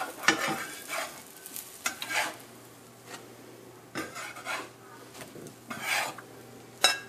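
Metal spatula scraping and clinking against a frying pan and a china plate as pancakes are lifted out and flipped onto the plate. There are about seven short scrapes and taps, over faint sizzling from the hot pan.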